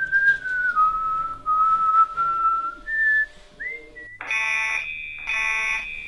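A person whistling a slow tune, one clear note at a time with slides between pitches. About four seconds in, an electronic warning alarm starts, pulsing about once a second over a steady high tone.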